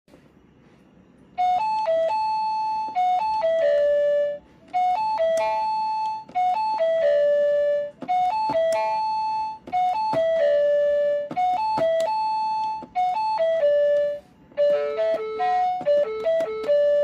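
Osaka subway station melody: a short electronic chime tune that plays four times in a row. Near the end a different, busier chime tune with lower notes begins.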